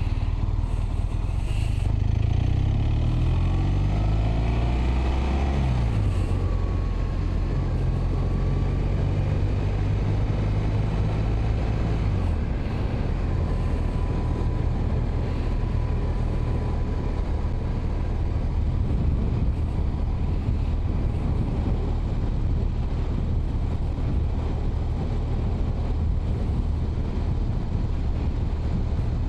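Motorcycle engine accelerating away with a rising pitch, dropping sharply as it shifts up a gear about six seconds in and again about twelve seconds in, then running steadily at cruising speed.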